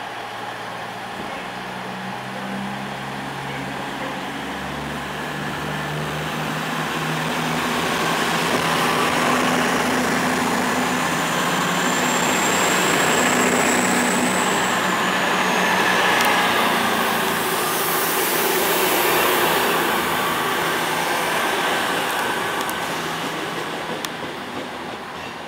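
CrossCountry Voyager diesel multiple unit running past on its underfloor diesel engines, growing louder as the carriages go by close and easing off near the end. A thin high squeal sounds for a few seconds in the middle.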